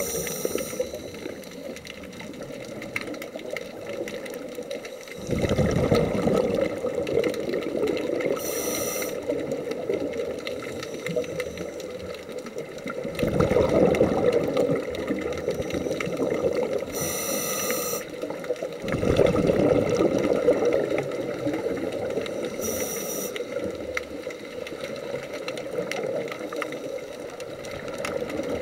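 A scuba diver breathing through a regulator, heard underwater: exhaled bubbles come in surges lasting a few seconds, about every six to eight seconds, with short hisses of inhalation in between.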